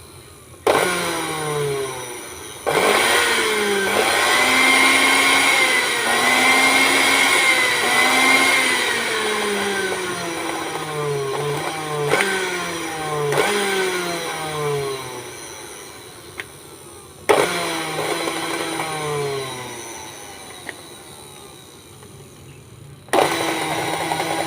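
Miyako blender's motor switched on repeatedly in short runs, each starting suddenly and then falling in pitch as it winds down, with a longer steadier run a few seconds in. The blender makes an odd, rough sound that the uploader puts down to a faulty switch.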